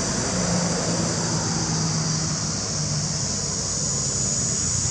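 Steady outdoor background noise: a constant high-pitched hiss over a low rumble, with a faint steady hum through the first half like a distant engine.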